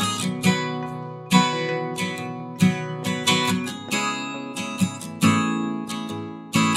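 Background music: strummed acoustic guitar chords at a moderate, even pace.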